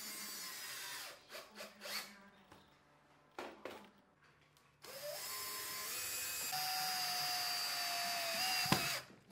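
Cordless drill-driver driving screws through metal pipe clamps. It runs briefly at the start, a few light clicks of handling follow, then it runs steadily for about four seconds with a whine and stops with a sharp click near the end.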